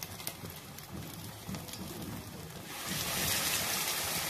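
Battered fish deep-frying in hot oil in a wok, with scattered crackles and pops. About two and a half seconds in, a second battered piece goes into the oil and the sizzling swells suddenly to a loud, steady hiss.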